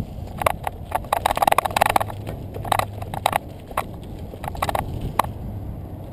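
Mountain bike rolling down a rocky dirt singletrack: irregular clacks and rattles as the tyres and frame jolt over loose stones, heaviest in the first half, over a steady low noise of tyres on dirt and wind on the microphone.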